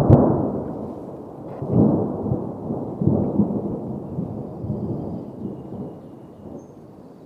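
Thunder: a loud peal with a sharp crack right at the start, then a rolling rumble that swells again twice, about two and three seconds in, and slowly dies away.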